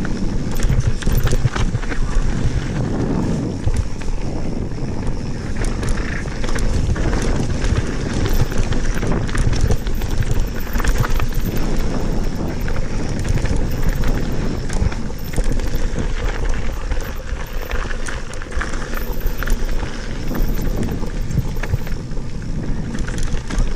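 Santa Cruz Bronson mountain bike riding down a gravel trail of small loose stones: tyres crunching and the bike rattling and clicking continuously over the rough surface, with wind buffeting the microphone.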